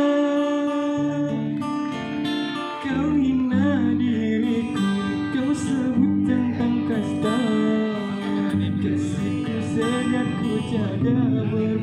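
Live acoustic music: acoustic guitars strummed and picked, with a man singing a slow, wavering melody over them.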